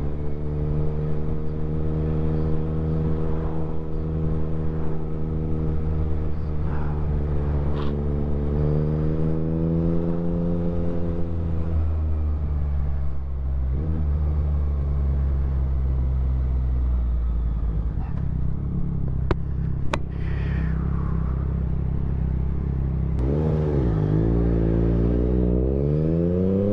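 Motorcycle engine heard from the rider's seat while riding, running at a steady cruise under a low rumble of wind. About twelve seconds in the throttle closes and the engine note drops. Near the end the revs dip and then climb steeply as the bike accelerates.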